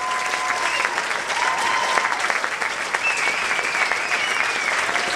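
Audience applauding and cheering: a steady mass of clapping, with a few voices calling out over it, one long high call about three seconds in.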